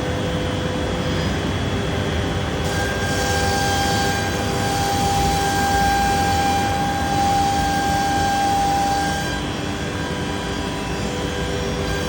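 Biesse Rover K CNC router milling solid wood: steady machine noise with the spindle's whine, its pitch shifting between held tones as the cut goes on, one higher tone held from about three seconds in until about nine seconds.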